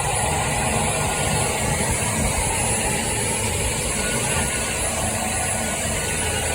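Household vacuum cleaner switched on and running steadily: a loud rush of air with a thin, high motor whine on top.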